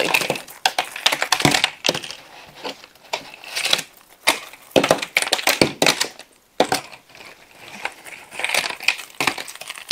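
Cardboard jigsaw puzzle pieces being pulled apart by hand and dropped in clumps onto a table: crackling, rustling and clattering again and again at irregular moments as the joined pieces snap loose and land.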